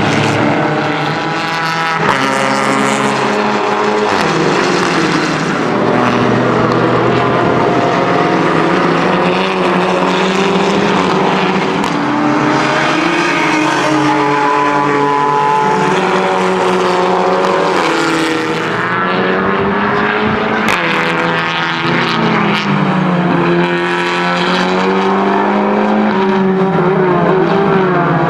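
VW Scirocco R race car's engine running hard at racing speed, its pitch climbing through the gears, dropping sharply at each upshift and falling on the downshifts, over and over.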